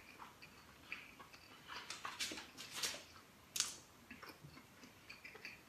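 Faint close-up chewing of a soft steamed beef and shiitake mushroom bun: scattered wet mouth clicks and lip smacks, busiest around the middle, with one sharper smack about three and a half seconds in.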